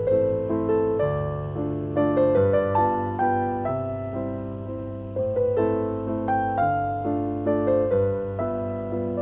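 Piano music: a slow melody of struck notes that ring and fade, over a steady low tone.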